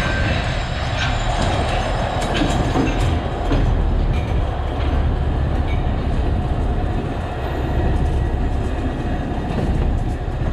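Alishan Forest Railway narrow-gauge wooden carriages rolling past close by: a steady rumble of wheels on the rails, with scattered clicks and clacks.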